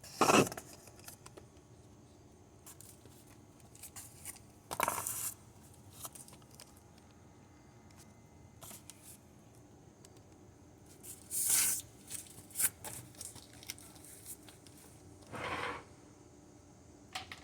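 Handling noises: a few short scrapes and rustles several seconds apart, the loudest just after the start, with near-quiet room tone between them.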